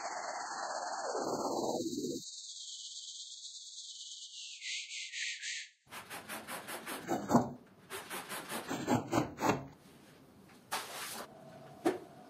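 Sped-up rug washing: a steady hiss over the first half, then a quick run of rubber squeegee strokes scraping soapy water off a wet rug, a few strokes a second. Two sharp clicks follow near the end.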